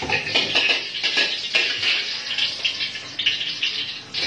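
Hot oil frying in a wok on a gas burner: a steady sizzle with scattered crackling pops, densest in the first second or two.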